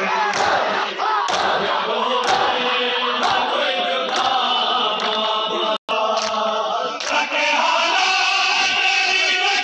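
A crowd of men chanting a noha in unison while beating their chests in time (matam), the open-hand slaps landing about once a second. The slaps stop about seven seconds in while the chanting goes on.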